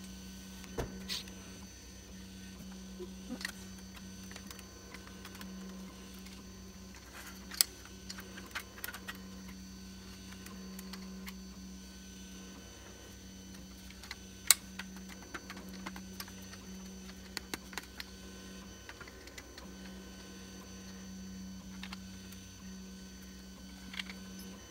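Scattered light clicks and taps of 3D-printer parts being handled and fitted together by hand (steel guide rods, printed plastic blocks, aluminium frame), with two sharper knocks about a third of the way in and about halfway through, over a steady low hum.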